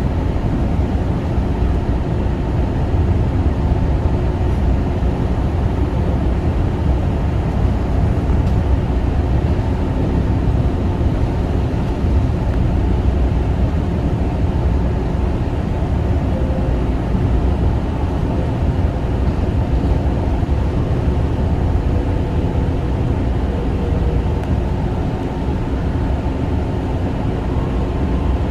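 Kawasaki M9 electric railcar running at speed, a steady low rumble of wheels on rail with faint steady tones from the running gear.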